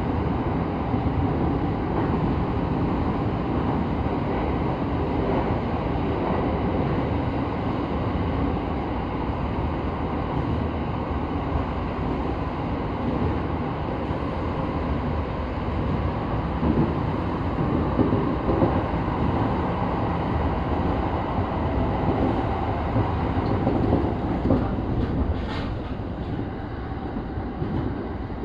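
Electric commuter train running at speed, heard from inside the driver's cab: a steady rumble of wheels on rail, made boomy by the enclosing tunnel.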